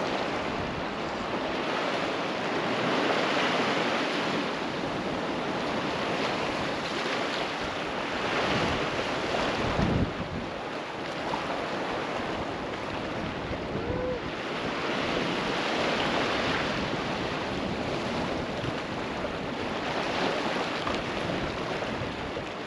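Small sea waves washing over and breaking on a low rock shelf, swelling and easing every few seconds, with wind buffeting the microphone and one low thump about ten seconds in.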